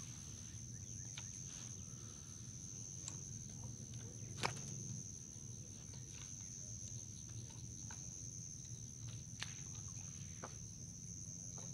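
Steady, high-pitched chorus of insects, cricket-like and unbroken, with scattered short clicks and knocks on top; the sharpest click comes about four and a half seconds in.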